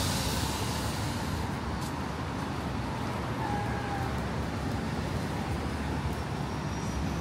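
Road traffic on a busy city street: a steady rumble of cars passing by.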